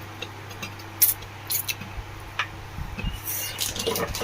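Small sharp clicks and taps of metal parts being handled as a new bush is fitted into a table fan motor's bush plate, one louder click about a second in and a quick run of small clicks near the end.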